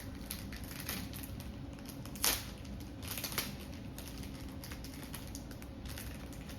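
Light clicks, taps and rustling from a small toy being handled, with one sharp click a little over two seconds in and a smaller click about a second later.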